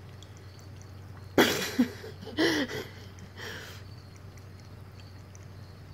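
A kitten lapping water from a stainless steel bowl, a faint run of soft wet ticks. About a second and a half in come a couple of short throaty, cough-like vocal sounds, the loudest thing here, then a softer breathy burst.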